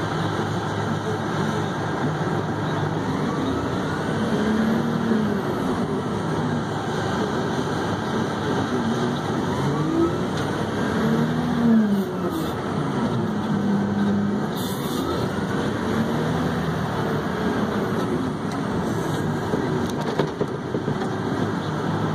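Haul truck's diesel engine running as the truck drives, heard from inside the cab. The engine pitch rises and falls back about three times as the revs go up and down.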